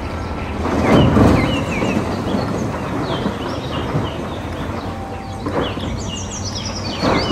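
The diesel engine of a heavy earthmoving machine runs steadily while a bucketload of dirt pours into a dump truck's bed, the loudest rush of falling material about a second in and more around five and a half and seven seconds. Birds chirp over it.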